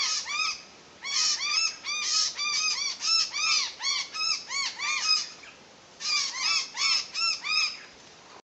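Noisy miner calling: rapid runs of short notes that each rise and fall in pitch, about four or five a second, in three bursts separated by brief pauses. The calls stop abruptly near the end.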